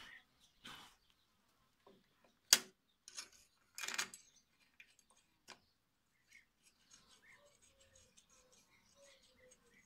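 Metal clicks as the sickle-bar mower's cutting knife is fitted back into the cutter bar by hand: one sharp click about two and a half seconds in, then a short clatter of metal just after four seconds.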